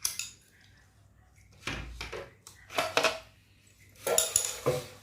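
Metal parts clinking and clattering in a few short bunches as they are handled and set down.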